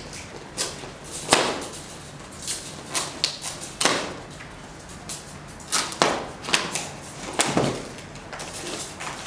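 Long cardboard shipping carton being worked open by hand: an irregular string of short rips, scrapes and knocks of cardboard and packing tape.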